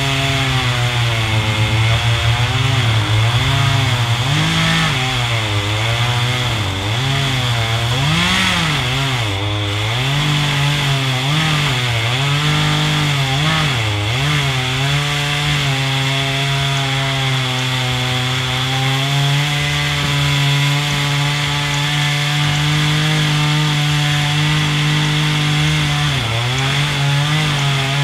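A small engine running off-screen, its pitch rising and falling about once a second for the first half, then holding steady, with a brief dip near the end.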